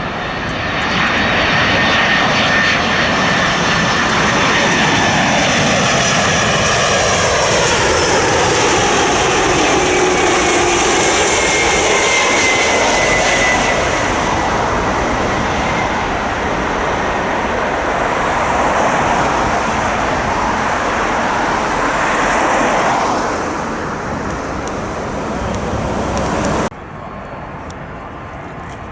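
Large jet airliner's engines on final approach, passing low overhead: a loud roar with a sweeping, whooshing shift in tone and a slowly falling whine as it goes by, fading away over the last few seconds before cutting off abruptly to a quieter background.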